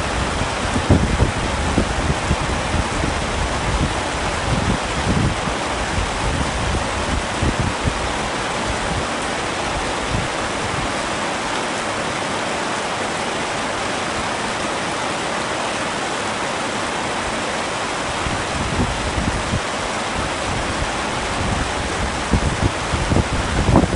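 Heavy rain falling steadily as a dense hiss, with low, gusty rumbling in the first couple of seconds and again near the end.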